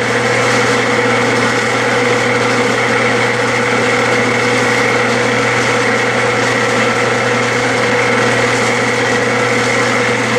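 Clausing metal lathe running steadily during a single-point threading pass, its belts, gears and motor giving a steady hum and whine.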